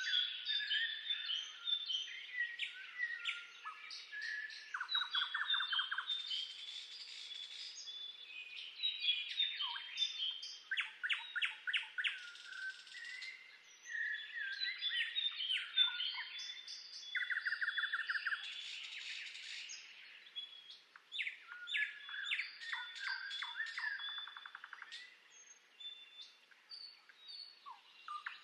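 Several songbirds singing and calling at once: overlapping quick chirps, short rapid trills and whistled notes, with no letup.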